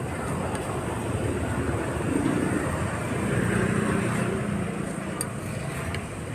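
Street traffic noise: a steady rumble of passing vehicles, with one vehicle's engine growing louder and fading away around the middle.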